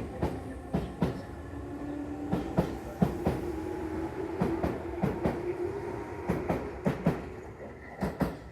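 Electric commuter train running along the track, its wheels clacking over rail joints in quick pairs about once a second. Under the clacks runs a motor hum that rises slightly in pitch.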